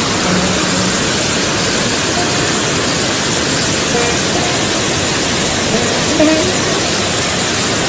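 Floodwater of a river in spate rushing and churning past, a loud steady rushing noise with no let-up. Faint voices come through briefly now and then.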